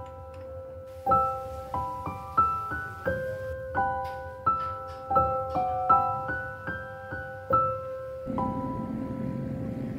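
Gentle background piano music: single notes of a slow melody, each struck and left to ring. About eight seconds in, a steady low droning layer joins the music.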